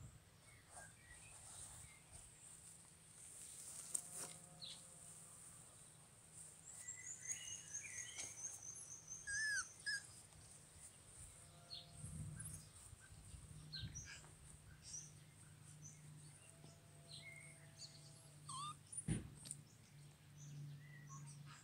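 Faint outdoor ambience of small birds chirping, with one quick descending trill, a few short, faint, steady-pitched calls, and a couple of brief sharp knocks.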